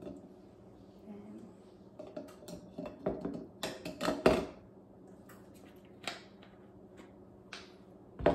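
Scattered small clicks and clinks of a bottle cap and a measuring spoon being handled over a glass dressing shaker. The clicks cluster in the middle, with the loudest about four seconds in and a few lighter ones later.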